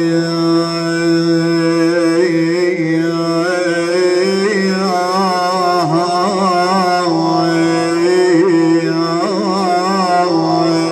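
Wordless, ornamented male vocal wail (ahaat) of a Shia lament chant, sung over a steady sustained drone. The voice line wavers and turns more and more from about two seconds in, and the sound drops off right at the end.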